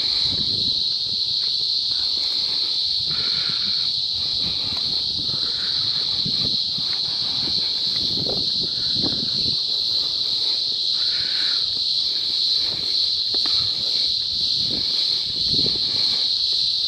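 Loud chorus of cicadas: a steady, high-pitched drone that holds without a break, with faint low rustles and knocks underneath.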